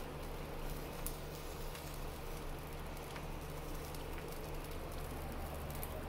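Sandwich frying in oil on an electric griddle: a steady, soft sizzle with a few faint crackles, over a low steady hum.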